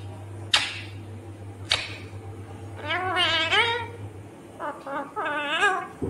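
Indian ringneck parakeet calling: two short sharp screeches in the first two seconds, then two longer warbling calls with wavering pitch around three and five seconds in.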